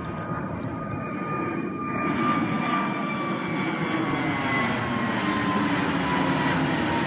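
Airbus A320neo's CFM LEAP-1A turbofans at climb-out power, a steady rush of jet noise with a whining tone that slowly falls in pitch as the aircraft passes. It grows louder about two seconds in.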